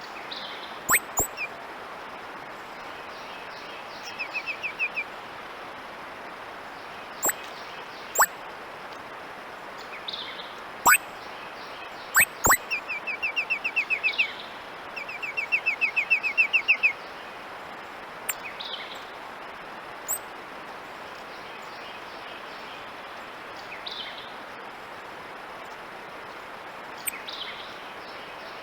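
Titmouse calling with electronic-sounding notes: sharp, very fast downward-sweeping zaps and quick trills of rapidly repeated chips, in scattered bouts that are busiest in the first half.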